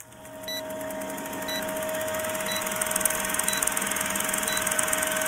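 Old film-projector countdown sound effect: a steady mechanical clatter and hiss with a steady tone beneath it and a short high blip once a second, in time with the countdown numbers.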